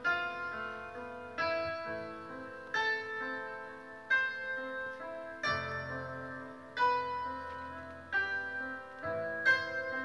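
Solo piano music: slow chords struck about every one and a half seconds, each left to ring and fade before the next.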